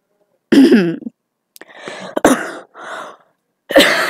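A boy's voice making non-word vocal sounds: a short pitched call about half a second in, then breathy, throaty noises, and another loud vocal sound near the end.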